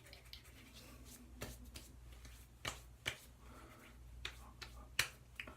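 Hands working post-shave balm into the face: faint rubbing broken by a handful of sharp little pats or smacks, the loudest about five seconds in.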